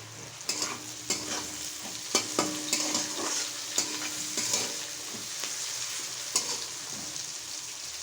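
Chopped onions and tomato sizzling in hot oil in a pan, with a spatula scraping and knocking against the pan at irregular intervals as they are stirred.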